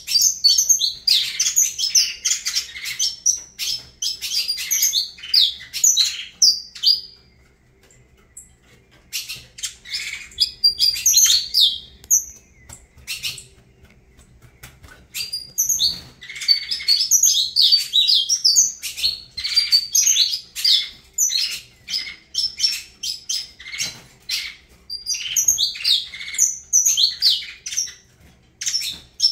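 Saffron finch (canário-da-terra) singing: long phrases of rapid, high chirps and trills, broken by a few short pauses of a second or two.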